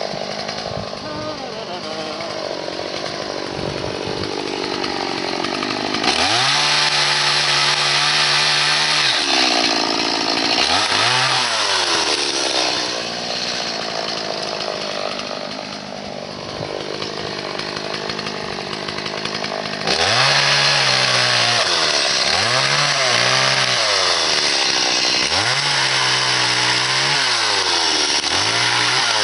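Stihl MS 180 two-stroke chainsaw revved to full throttle in repeated bursts, each time falling back toward idle: one longer burst early on, then four shorter ones in quick succession in the last third.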